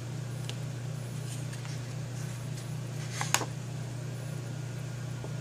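Steady low background hum, with one short, light click about three seconds in as the stamped card is lifted off the magnetic stamping platform.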